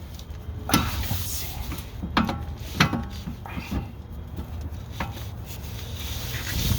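A bolt being worked back into a car's rear suspension mount by hand: a few sharp, irregular metal clicks and knocks, about five over several seconds, over a steady low hum.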